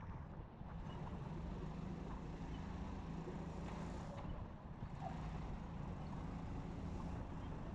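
Sodi RT8 kart's engine running steadily at speed, heard from on board the kart among other karts, with a noisy rush over it.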